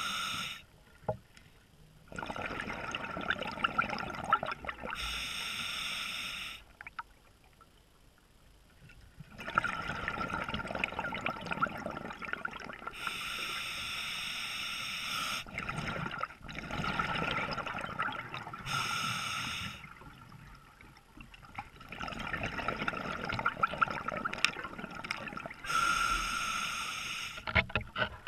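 Scuba diver breathing through a regulator underwater: about five breaths, each a short hissing inhale followed by a pause and then a few seconds of bubbling exhaust.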